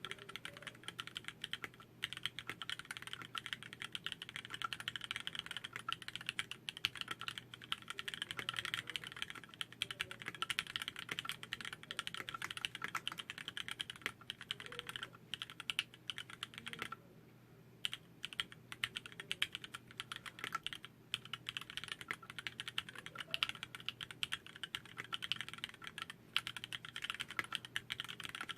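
Continuous fast typing on a TX60 custom mechanical keyboard with Cherry MX Vintage Black linear switches on a brass plate, a rapid stream of key clicks with a brief pause about two-thirds of the way through.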